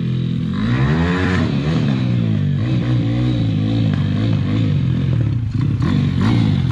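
Pit bike's small single-cylinder engine revving up and down again and again as it is ridden, the pitch rising and falling about once a second and growing a little louder as the bike comes closer.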